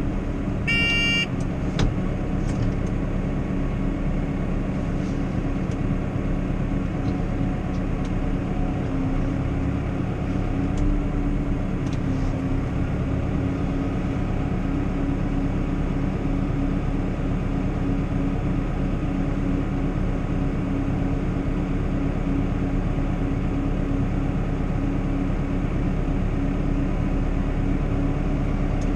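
Valtra tractor engine and towed sand sweeper running, heard from inside the cab as a steady, even drone. A short electronic beep sounds about a second in.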